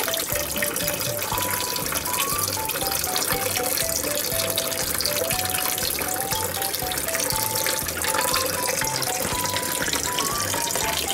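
Light background music, a simple stepping melody over a soft steady beat, laid over a steady hiss of running water from a tap.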